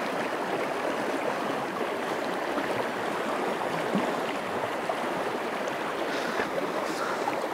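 Rushing river water running fast over a shallow stony bed: a steady, even rush.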